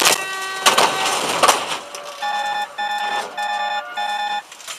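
Vehicle horn sounding: a held blast that stops within the first second, mixed with loud noisy bangs, then four short, evenly spaced honks as a motorhome cuts across the front of the vehicle.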